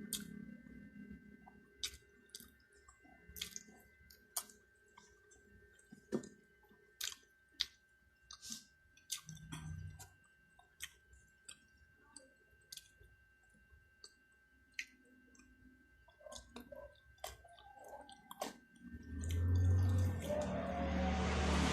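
Close-up eating sounds: chewing with small wet mouth noises and scattered sharp clicks. Near the end a passing road vehicle grows loud and drowns them.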